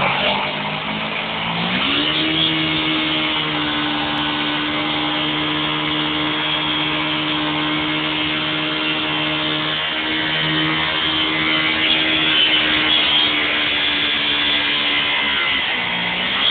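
Suzuki GS500's parallel-twin engine held at high revs during a stationary burnout, the rear tyre spinning against the ground and smoking. The revs climb about two seconds in, hold steady, then dip briefly near the end and rise again.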